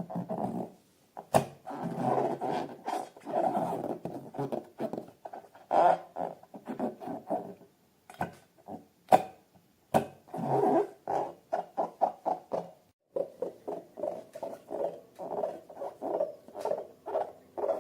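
Slime being squeezed and kneaded by hand: irregular wet squelches with sharp sticky clicks and pops, turning in the last few seconds into a quick, regular run of short squishes.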